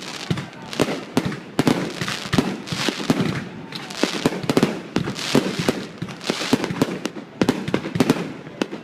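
Fireworks going off in quick, irregular succession: many sharp bangs and crackles overlapping, with no pause.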